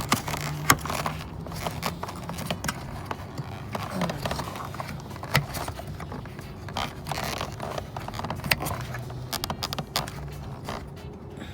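Scattered small clicks, scrapes and rubbing as an H4 LED headlight bulb's prong is worked through its rubber dust boot, over a low steady hum.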